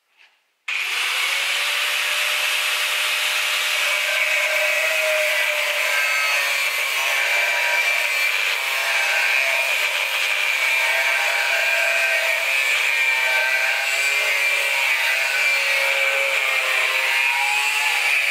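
Corded angle grinder with a thin cutting disc cutting through steel plate held in a bench vice. It starts abruptly just under a second in, then gives a steady, loud grinding screech with a whine that wavers slightly as the disc is loaded.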